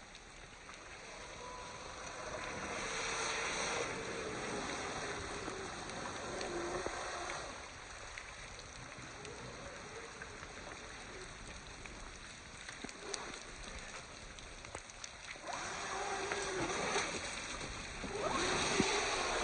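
Traxxas Raptor R Ultimate RC truck splashing through water in several surges, with a faint whine from its brushless electric motor rising and falling under throttle.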